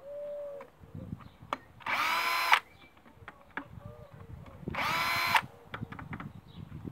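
Cordless drill-driver unscrewing the exhaust muffler screws of a small two-stroke hedge trimmer engine. It runs in two short bursts, about two and five seconds in, each with a motor whine that rises as it spins up, after a briefer, quieter run at the very start; light clicks of handling come in between.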